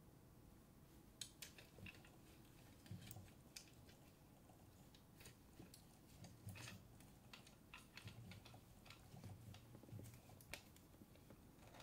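Faint scattered clicks and taps of a plastic transforming robot figure's joints and parts being moved and posed by gloved hands, starting about a second in, with a few soft thumps of handling.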